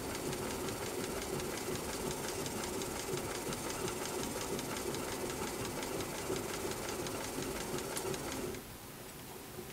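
Juki LU-563 industrial walking foot sewing machine, driven by a servo motor through a speed reducer, running steadily and stitching leather piping with a fast, even stitch rhythm. It stops near the end.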